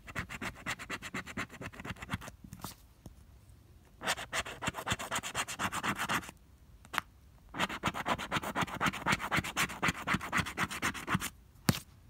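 A plastic scratcher tool rubbing the scratch-off coating off a lottery ticket in rapid back-and-forth strokes, in three runs with short pauses between them. A single sharp tick comes just before the end.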